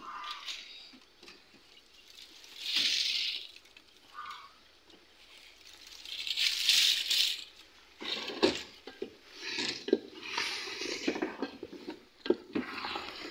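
Wooden spoon stirring potatoes frying in a steel pot, with a quick run of knocks and scrapes against the pot from about eight seconds in. Before that come a few short bursts of hiss.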